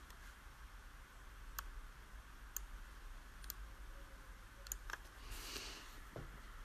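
Faint, sharp clicks spaced roughly a second apart, with a brief soft hiss a little over five seconds in.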